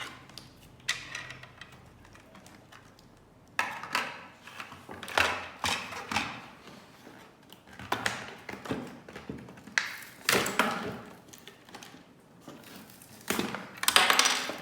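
Polly Pocket plastic toy pieces and their packaging being taken out of the box: scattered light taps and clicks of plastic, with several short bursts of rustling.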